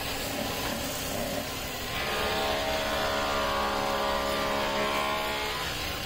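A motor running steadily with a pitched hum over a noisy whirr, its tone shifting and growing louder about two seconds in.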